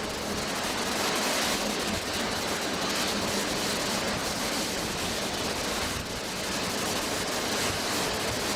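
Jet airliner engines making a steady rushing roar that holds level, dipping slightly about six seconds in.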